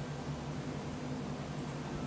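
Faint steady background: a low hum under a soft hiss, with no distinct sound event.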